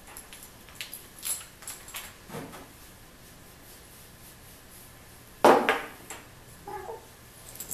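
Scattered clicks and light knocks of hard costume claws tapping and scraping on a wooden tabletop as a spotted cat is pawed and wrestled, with one much louder sudden noise about five and a half seconds in.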